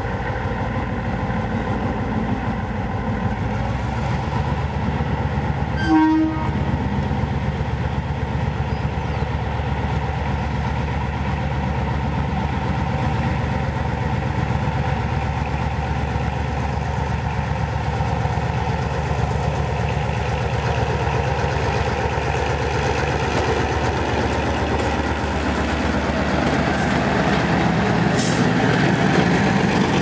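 EMD G22 diesel-electric locomotive with its two-stroke diesel engine running under load as it pulls a passenger train away, growing louder as it draws alongside near the end. About six seconds in, its broken Alco horn gives one short blast.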